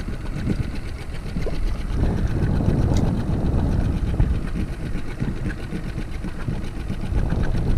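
Small outboard motor running steadily at low speed.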